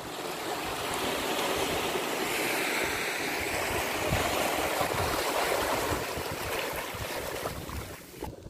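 Small waves washing over rocks at the edge of a shallow reef flat, a steady rushing, with wind buffeting the microphone in low gusts. The wash drops away suddenly near the end.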